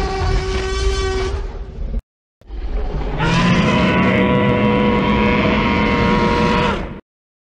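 Sound-designed dinosaur roars, film-style: one roar ends about two seconds in, then after a short gap a long roar is held at a steady pitch for about four and a half seconds and cuts off abruptly.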